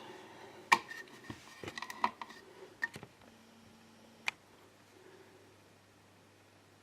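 Light clicks and taps of small metal padlock parts being handled: the padlock body and its removed Euro cylinder. The clicks come scattered and quiet through the first few seconds, with one sharper click a little past four seconds, then it goes still.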